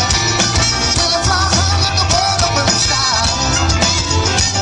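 Live rock band playing, with electric guitars over a steady beat and a man singing.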